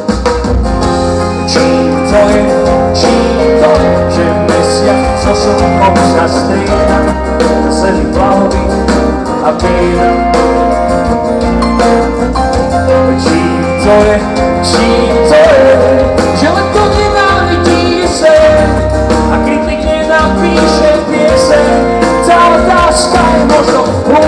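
Live pop-rock band playing loudly through a festival PA, with drums, bass, electric guitars and keyboards, recorded from within the crowd.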